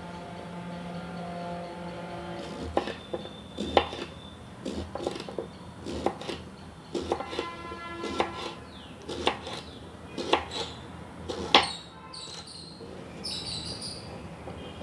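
Kitchen knife chopping tender pumpkin into cubes on a wooden cutting board: an irregular series of sharp knocks as the blade hits the board, starting about three seconds in, with the loudest knocks near the start and near the end.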